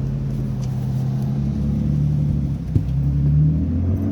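Low, steady rumble of a vehicle engine, getting slowly louder, with one sharp knock near the three-second mark.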